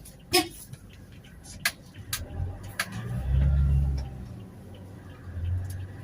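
Several sharp clicks and knocks, then the low rumble of a Toyota Hiace Commuter van's engine that swells about halfway in, eases, and rises again near the end.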